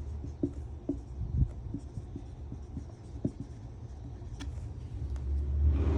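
Writing by hand: scattered light taps and scratchy strokes of a writing tool on a surface. About five seconds in, a louder low rumble rises.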